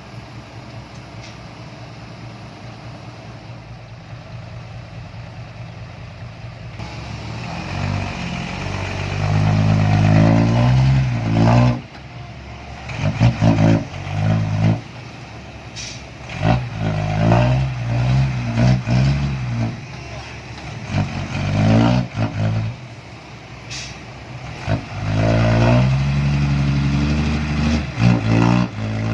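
Komatsu PC130-8 excavator's diesel engine running steadily, then revving up and easing off again and again as it works under hydraulic load, with a few sharp knocks in between.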